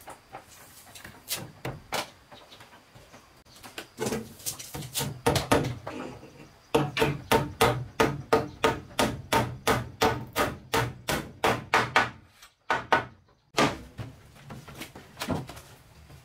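Hammer striking wooden boards in quick, even blows, about three to four a second. Scattered blows come first, then a steady run of blows over about five seconds, a short pause, and a few more.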